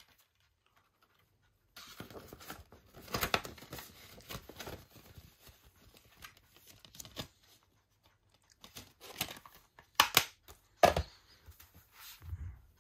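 Paper and thin card rustling and crinkling as the contents of a box set are handled, a few seconds of continuous rustle starting after a short silence, then a couple of sharp taps near the end.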